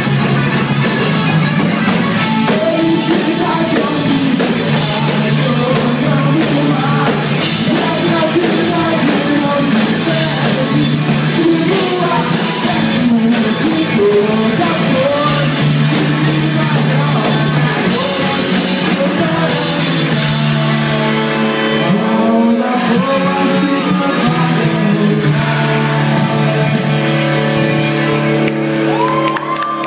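Live rock band playing: drum kit, electric guitar and bass guitar, with a lead singer at the microphone. About two-thirds of the way through, the high clatter drops away, leaving held chords under the voice.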